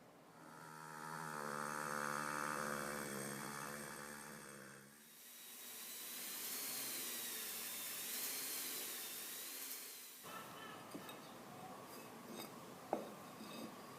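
A small power tool runs in two spells: first a steady motor note that sags slightly, then a harsher hiss that cuts off suddenly. Afterwards come light taps and one sharp knock near the end.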